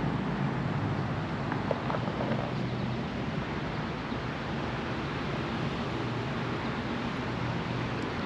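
Catamaran's engine running steadily at low speed, a low even hum under wind noise on the microphone.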